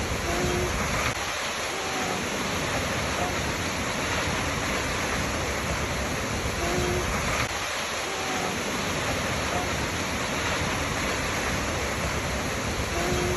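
Steady rushing of a waterfall, with a few faint short tones recurring about every seven seconds.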